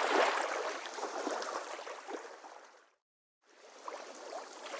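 River water lapping and splashing gently with small irregular slaps. It fades out about three seconds in, drops to a brief moment of silence, then fades back in.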